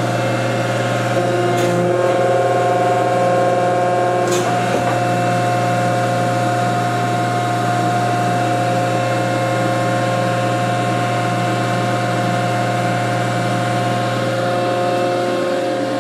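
Hydraulic pump unit of an old Rockford Machine Tool Company hydraulic machine, driven by a 20-horsepower three-phase electric motor, running steadily with a strong hum and several steady whining tones. Two light clicks come about 2 and 4 seconds in.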